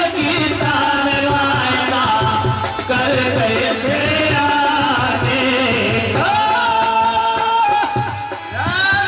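Hindi devotional bhajan: an elderly man singing long, wavering held notes over instrumental accompaniment with a steady drum beat.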